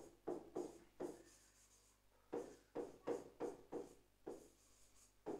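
Marker pen writing on a board: a run of faint, short strokes with a brief pause near the middle, as a word is written out.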